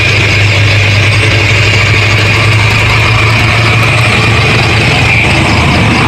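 Concrete mixer truck's diesel engine running with a steady low drone as the truck pulls out.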